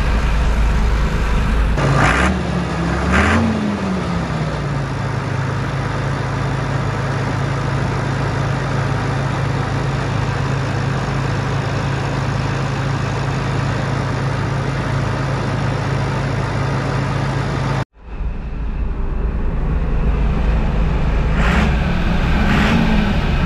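Massey Ferguson 850 combine's Perkins diesel engine running steadily, its pitch rising briefly and falling back about two seconds in and again near the end. The sound cuts out for an instant about eighteen seconds in, then the engine carries on.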